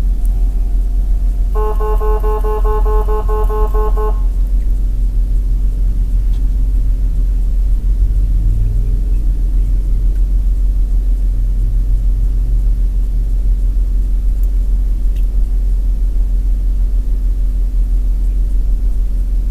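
Steady low rumble of a moving vehicle, with a vehicle horn sounding once for about two and a half seconds near the start.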